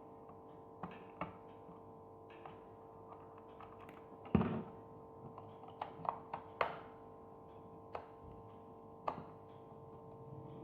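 Small clicks, taps and knocks of a screwdriver working screws out of a plastic camera body, scattered and irregular, with one louder knock about four seconds in. A faint steady tone runs underneath.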